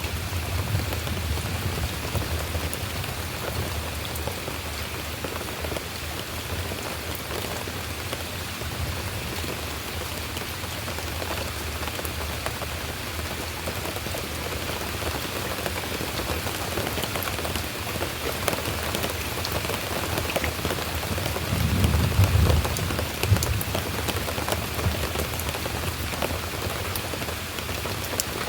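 Steady rain falling, with a low rumble underneath that swells for a couple of seconds about three-quarters of the way through.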